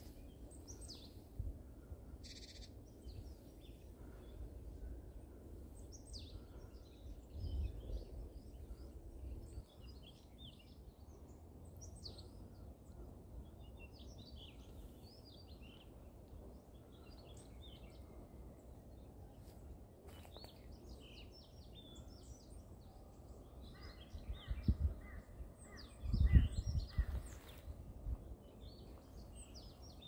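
Small songbirds chirping and twittering on and off, over a steady low outdoor rumble. A few short low rumbling bursts come through, the loudest a little before the end.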